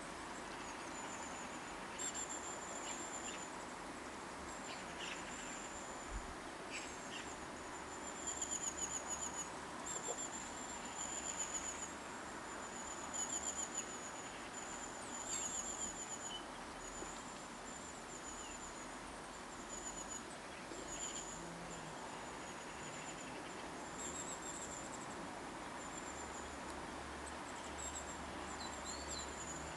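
High-pitched trilling calls from a small animal, each about a second long, repeated every second or two over a steady outdoor hiss.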